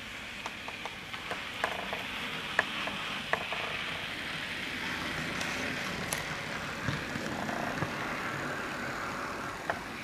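Model railway Class 56 diesel locomotive running along the track: a steady motor-and-wheel whir that swells as it passes and eases near the end, with irregular sharp clicks of the wheels over rail joints, mostly in the first few seconds.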